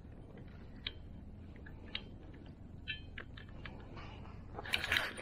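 Sparse faint clicks, about one a second, over a low steady background, then a louder burst of clicking and rattling near the end.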